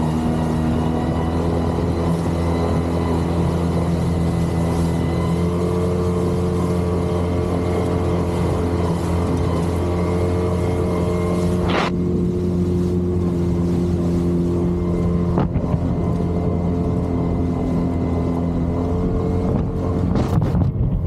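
Outboard motor on a small inflatable boat running steadily at an even speed, with a couple of brief knocks partway through.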